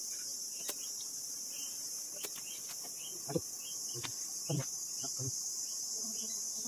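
Steady high-pitched insect chorus of crickets or cicadas, with scattered light clicks and knocks.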